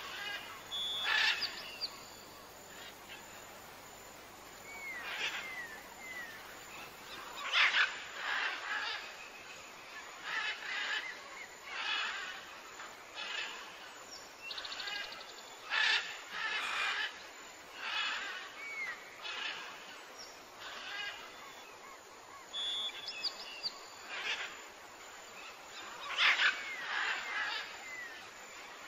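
Birds calling and chirping outdoors, with short calls every second or so and a few quick rising-and-falling whistles among them.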